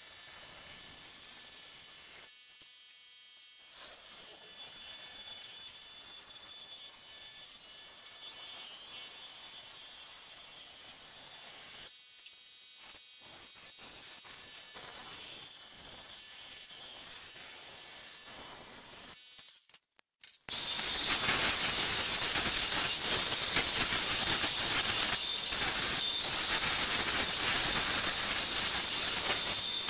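Scroll saw running, its blade cutting through a wooden board. About twenty seconds in it stops and a much louder, steady hissing takes over: a Delta belt-and-disc sander running.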